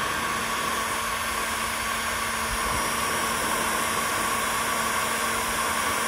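Battery-powered heat gun running steadily, a constant rush of blown air with a faint steady motor whine, heating a chainsaw crankcase's bearing pocket to free the pressed-in crank bearing.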